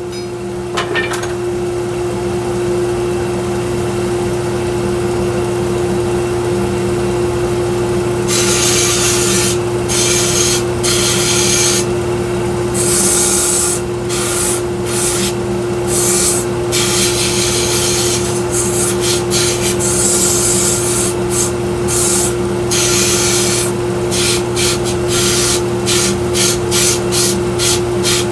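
A 1x42 belt sander running steadily with a constant motor hum. After about eight seconds, the work is pressed to the belt again and again, in repeated short grinding passes, while shaping the fit of an axe head.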